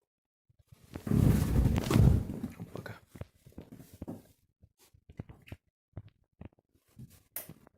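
Candy washing machine paused between drum turns while its kg detector weighs a small load. A loud burst of noise about a second in lasts about a second and a half, followed by scattered light clicks and knocks.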